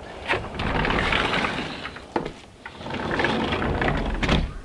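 Glass sliding patio door rolling along its track twice, with a sharp knock near the end as it is pushed shut.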